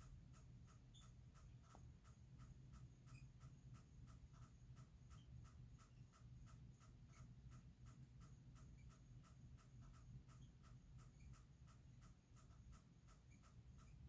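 Faint night-time ambience: a regular pulsing call about three times a second, with a few brief higher chirps and a steady low hum beneath.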